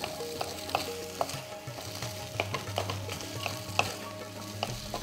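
Wooden spoon stirring and breaking up silken tofu in a hot pan of frying onions, with irregular knocks and scrapes of the spoon against the pan over a steady sizzle.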